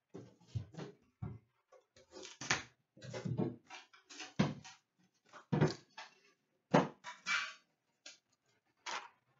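Metal tin of Series 2 hockey cards being handled and opened: an irregular run of knocks and clacks of tin and cardboard against a glass counter, with a few short scrapes.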